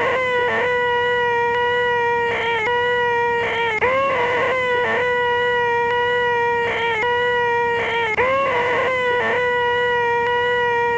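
A man's voice making the 'most annoying sound in the world': a long, high, nasal 'eeeeeh' whine held on one pitch, bending up slightly as it starts. It breaks off and starts again every couple of seconds, looped over and over.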